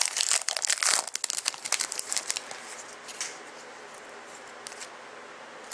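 A hockey trading-card pack being torn open, its wrapper crinkling and crackling densely for about two and a half seconds, then dying down to faint rustling.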